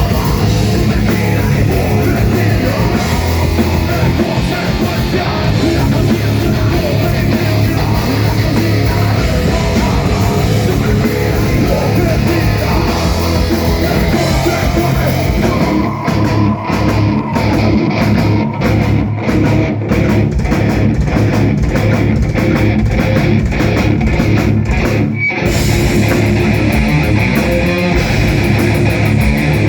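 Heavy metal band playing live and loud, electric guitars to the fore. About halfway through, the band switches to a stop-start passage of short, clipped hits with brief gaps, then goes back to full, continuous playing near the end.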